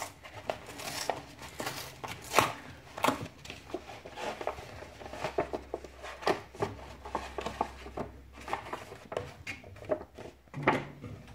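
Kraft paper mailer being peeled open along its adhesive flap and handled, a run of irregular paper rustles and sharp crackles, with a plastic pouch slid out of it; the sharpest crackles come about two seconds in and near the end.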